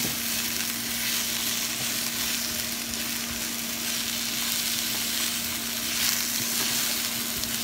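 Sliced zucchini and yellow squash sizzling in oil in a nonstick frying pan as they are stirred with a silicone spatula. The sizzle is steady, with a constant low hum beneath it.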